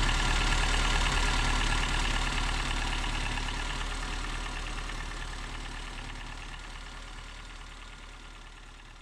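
Datsun 720's turbocharged engine idling steadily, fading out gradually over several seconds.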